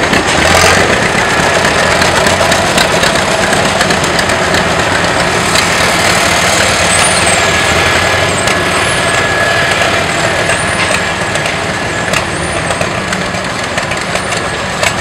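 Antique farm tractor engines running steadily as a line of old tractors drives past, including John Deere tractors.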